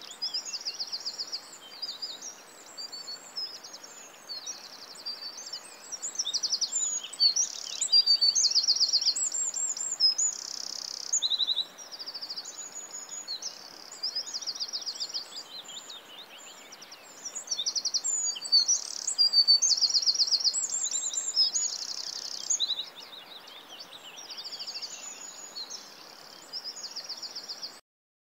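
Several birds chirping and singing at once, with many rapid trills, over faint steady background noise; it cuts off abruptly near the end.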